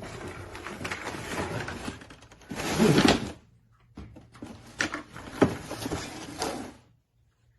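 Handling of a toy RC car and its packaging: rustling and scraping, a louder burst about three seconds in, then more rustling with a few sharp clicks and knocks before it goes quiet.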